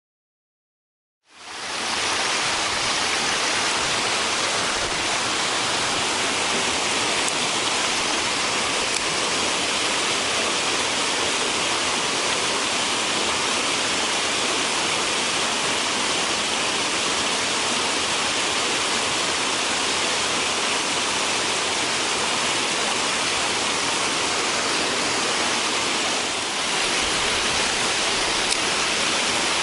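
Steady rush of a mountain stream's flowing water, coming in about a second in after silence.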